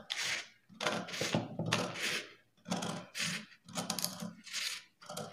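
Long-bladed scissors cutting along a curve through brown pattern paper: a steady run of about eight snips, roughly one and a half a second.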